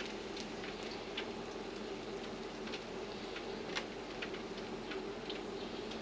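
Beer-battered walleye frying in an electric deep fryer: the hot oil sizzles steadily, with scattered crackles and pops.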